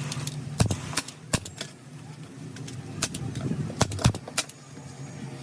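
Hand or pneumatic staple gun firing staples into a chair's upholstery: about seven sharp clicks at uneven intervals, over a steady low hum.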